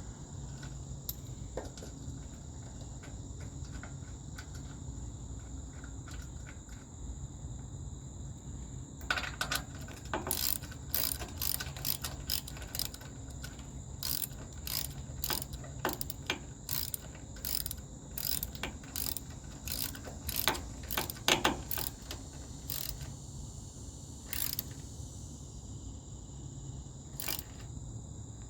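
Ratchet wrench tightening a bolt: quiet at first, then from about a third of the way in, quick runs of sharp ratchet clicks with short pauses between strokes.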